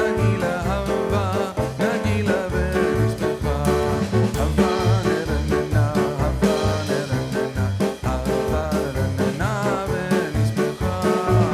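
Background music with a steady beat and a bouncy swing-style melody.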